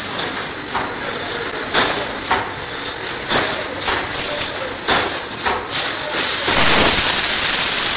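Wire mesh welding machine running: irregular metallic knocks and clanks of its welding cycle over a constant hiss, then a loud steady hiss from about six and a half seconds in.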